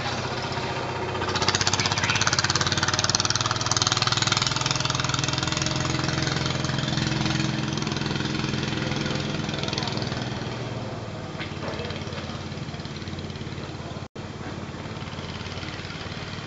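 Boat engine running with a steady low chug, growing louder about a second and a half in and easing off after about ten seconds as it passes.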